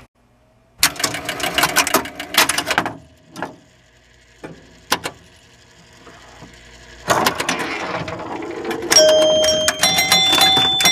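1976 Williams Grand Prix electromechanical pinball machine starting a game: its relays and score motor clatter in quick bursts of clicks as the machine resets, with a few single clicks between the bursts. Near the end, bright ringing tones that step in pitch come in over the clicking.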